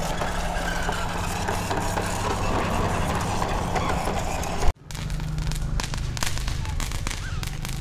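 Steady outdoor noise with a low hum. After a sudden break about five seconds in, a lit firecracker on the ground fizzes and crackles as it throws sparks.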